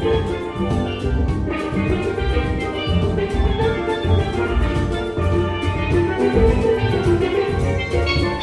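Steel band playing: many steelpans of different ranges, including bass pans, sounding together over a drum kit.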